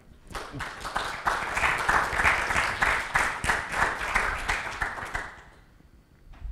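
Audience applauding: a dense patter of many hands clapping that starts just after the beginning and dies away after about five seconds.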